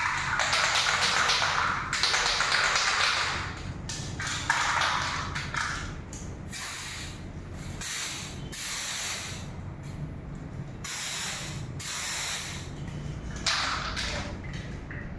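Aerosol can of non-aqueous developer spraying in a series of hissing bursts, long ones at first and shorter ones later: the white developer coat of a liquid penetrant test.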